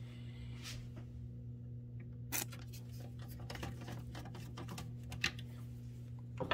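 Screwdriver driving small screws into a CD player's metal chassis: a run of small clicks and scrapes, busiest in the middle, over a steady low hum.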